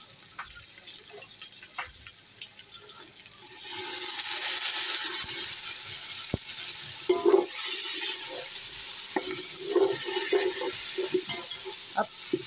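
Onions, ginger-garlic paste and green chillies frying in hot oil in a large metal pot: a light crackle that jumps to a loud steady sizzle about three and a half seconds in. In the second half a metal slotted spoon scrapes and knocks against the pot as the mixture is stirred.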